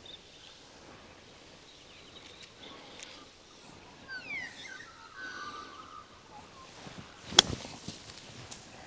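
A 56-degree wedge striking a golf ball once on a short pitch from a tight lie: a single sharp click near the end. Before it, birds call faintly with a few quick sweeping notes about halfway through.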